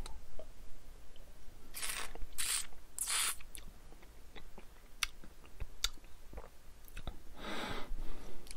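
Breath and mouth sounds of a person tasting whisky: three quick breaths about two seconds in, small wet mouth clicks, and a longer breath near the end.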